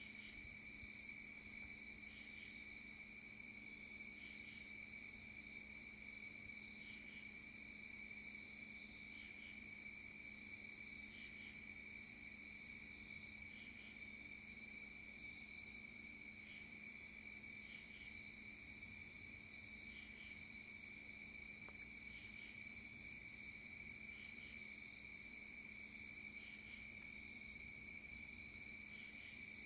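Night chorus of crickets trilling steadily, with a second, softer chirp repeating about every two seconds.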